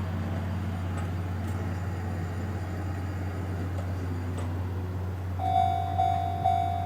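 A steady low hum in the background. About five seconds in, a railway level-crossing warning bell starts ringing, about two strikes a second, each strike dying away.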